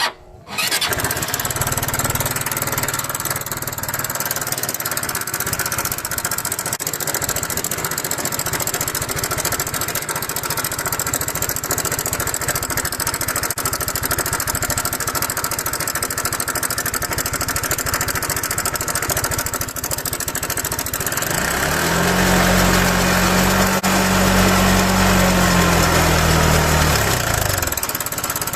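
KYMCO Racing King 180 scooter's single-cylinder engine starting about half a second in and running with a loud abnormal mechanical noise, revved up and back down about 21 seconds in. The noise comes from a cam chain tensioner whose spring had broken to pieces.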